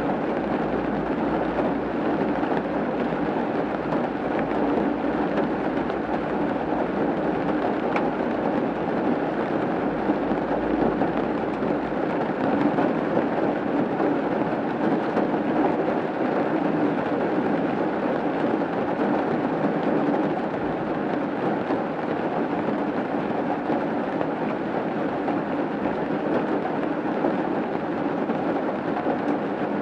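Rain falling steadily on a roof, a dense, even patter. A faint low rumble underneath dies away about twelve seconds in.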